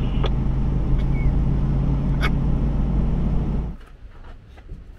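Vehicle engine running with a steady low hum, with a couple of faint clicks, cutting off abruptly near the end.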